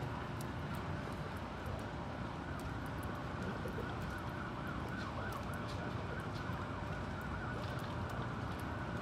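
Steady low rumble of an R32 subway train creeping out of the tunnel toward the station, with a faint warbling high tone wavering through the middle few seconds.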